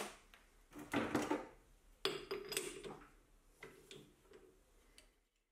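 Several short metallic clinks and rattles, four or five in a row, each lasting about half a second, as metal parts are handled at a stopped lathe.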